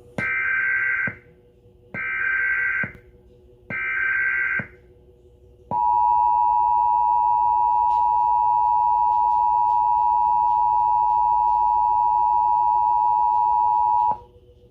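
Emergency Alert System signal. It opens with three short screeching digital data bursts of about a second each: the SAME header, sent three times. Then comes the steady two-tone EAS attention signal, held for about eight and a half seconds before it cuts off.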